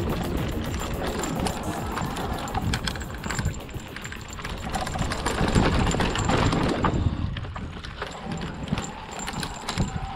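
Hardtail e-mountain bike riding fast down a dirt singletrack: tyres rolling on the trail, with the chain and frame rattling and knocking over bumps and wind on the microphone. The rattling is loudest about halfway through.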